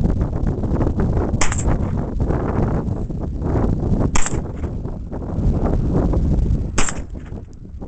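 Three single shots from a 9mm AR-15 carbine, fired about two and a half seconds apart, over steady wind rumble on the microphone.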